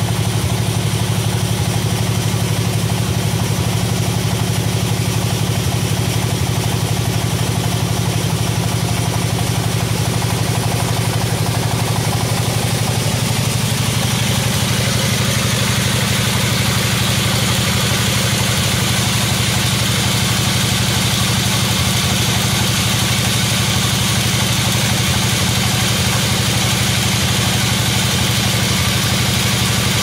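Band sawmill running steadily, its drive giving a constant low hum. From about 14 seconds in, a brighter hiss joins as the blade cuts through an old coconut log.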